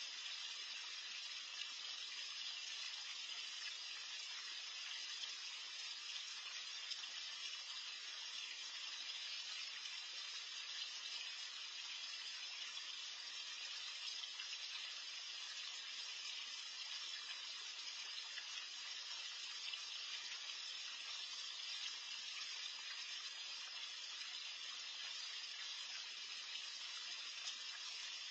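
Steady, even hiss of water churning in a small backyard pond, stirred by a fountain or aerator.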